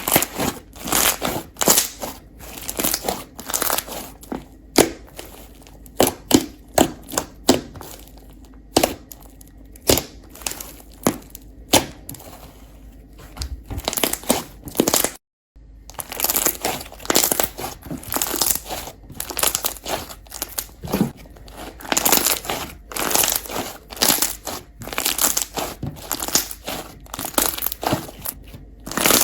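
Slime being squished and pressed by hand: rapid sticky crackles and pops, breaking off briefly about halfway through.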